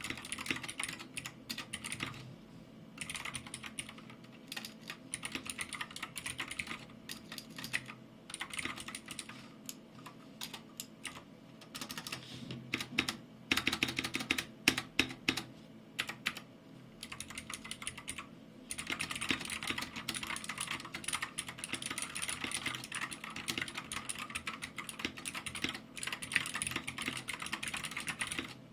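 Fast typing on a Keycool 84 2S mechanical keyboard with clicky Gateron Blue switches: a dense run of sharp keystroke clicks, broken by a few short pauses, with some louder strokes about halfway through.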